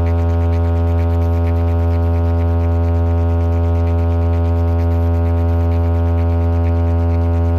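Loud, steady electrical mains hum from a large DJ sound box speaker stack: a low, unchanging buzz with many overtones.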